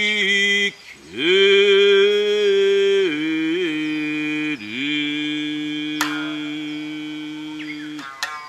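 A man's voice singing a long, drawn-out phrase of Satsuma biwa chant, held on sustained notes with slow pitch bends and small wavers, with a short break about a second in. The voice ends about eight seconds in, and sharp plectrum strikes on the biwa's strings follow right after.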